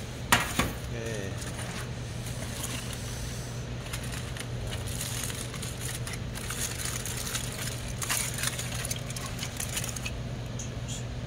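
A metal sheet pan is set down on a stainless-steel counter with one sharp clang, then aluminium foil crinkles and rustles as a foil-wrapped smoked brisket is opened, over a steady low hum.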